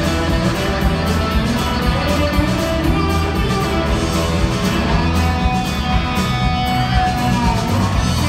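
Rock band playing live: electric guitars over a drum kit, loud and unbroken.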